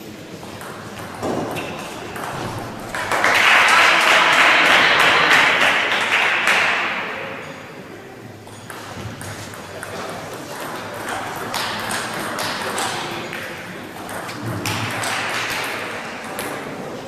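Celluloid-type table tennis ball being struck by rubber-faced paddles and bouncing on the table in a rally: a run of sharp pings and taps. About three seconds in comes a loud burst of voices, the loudest part. Later come further scattered ball taps and quieter voices.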